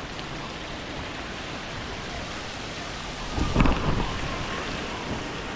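Steady rush of running and splashing water from a waterpark children's pool and its water features. About three and a half seconds in, a louder gush of noise lasts about a second.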